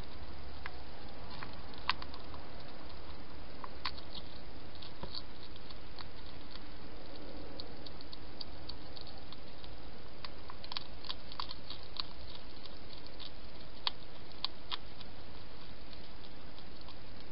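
European hedgehog feeding at a dish, its mouth making small irregular clicks and smacks over a steady hiss.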